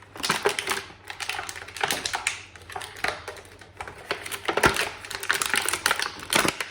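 Action figure packaging crackling and clicking as the figure is pulled out of its tray, in irregular clusters of sharp rapid clicks.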